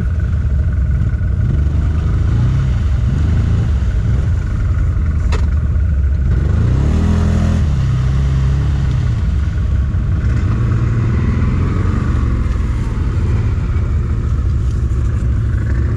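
Quad bike (ATV) engine running under way, its revs rising and falling as it rides over rough ground, with one sharp knock about five seconds in.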